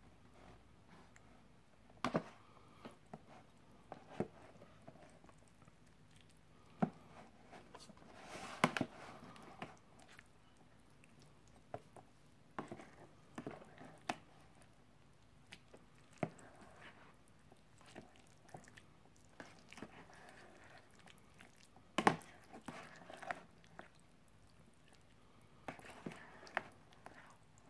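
Metal spoon stirring and mashing curry sauce and rice in a plastic ready-meal tray: soft wet squelching and scraping, with irregular clicks and taps of the spoon against the tray.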